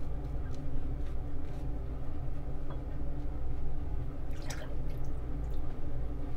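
Small wet sounds of shaving with a safety razor: scattered short scrapes and drips, with one louder, longer scrape about four and a half seconds in, over a steady low hum.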